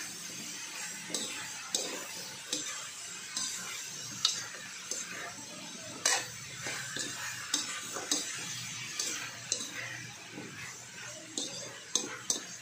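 Spatula scraping and clinking against a metal wok as vegetables are stir-fried, over a steady sizzle. The taps come irregularly, the sharpest about six seconds in and a quick few near the end.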